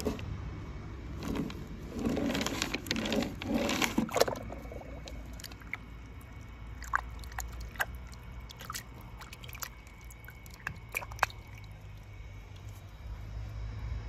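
Water sloshing and splashing in a tub as hands move painted toy cars through it, strongest between about two and four seconds in. This is followed by scattered drips, small plinks and clicks.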